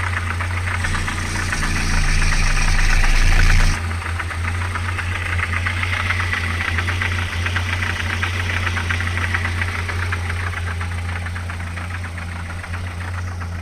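ZMZ-405 four-cylinder petrol engine idling warm with a fast, even diesel-like knocking and clatter. It runs a little faster and louder for a few seconds near the start, then drops back sharply. The owner takes the knock for a timing chain rattling, with a failed hydraulic chain tensioner or hydraulic lifter also suspected.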